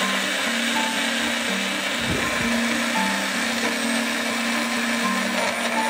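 Personal blender running steadily, its motor chopping banana chunks into a puree, with background music over it.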